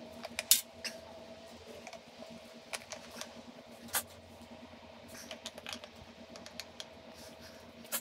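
Light clicks and taps of hand tools and small metal parts being handled during brake caliper work, scattered irregularly. The sharpest taps come about half a second in and at about four seconds, over a faint steady hum.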